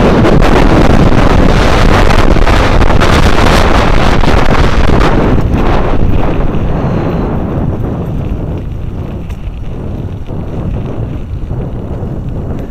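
Wind buffeting the microphone of a camera on a moving electric bike, a loud rumbling rush that eases off about six seconds in as the bike slows.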